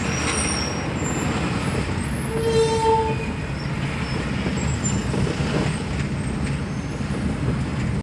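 Steady road and engine noise heard from inside a moving car in traffic, with a short vehicle horn toot about two and a half seconds in.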